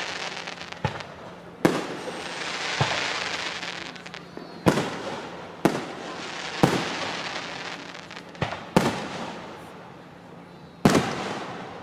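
Aerial fireworks shells bursting in a string of sharp bangs, one every second or two at uneven intervals, each trailing off in an echo, over a steady hiss.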